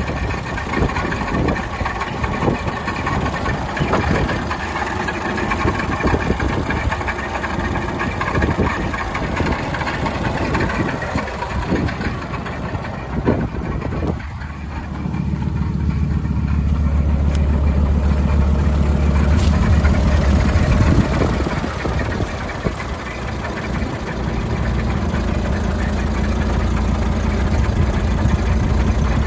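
Diesel engine of a Mercedes-Benz Unimog UX100 truck idling, with an uneven clatter. About halfway through it becomes a louder, deeper steady rumble.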